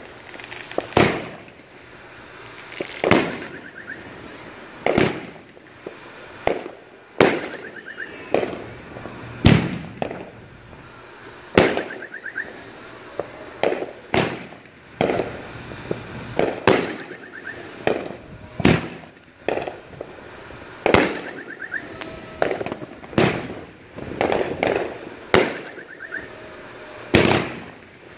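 Brothers "Wacky Tobacky" consumer fireworks cake firing: a string of sharp bangs, roughly one every one to two seconds, each trailing off briefly.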